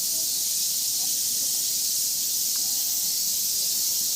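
Steady, high-pitched shrill hiss of a cicada chorus, unbroken throughout, with faint distant voices beneath it.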